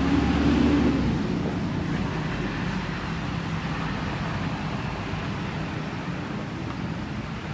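Steady low engine drone of a vehicle, loudest about a second in and then slowly fading away.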